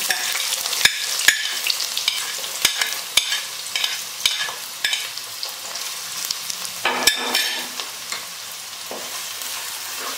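Chopped onions dropping into hot coconut oil and sizzling loudly, frying as a spoon stirs them, with sharp knocks and scrapes of the spoon against the pot now and then. The sizzle eases a little in the last couple of seconds.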